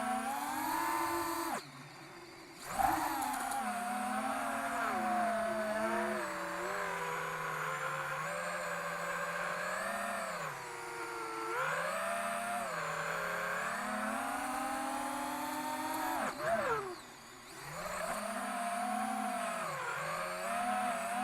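Brushless FPV drone motor, suspected faulty, spinning at varying throttle: a whine that rises and falls in pitch again and again, dropping out briefly about two seconds in and again near the end.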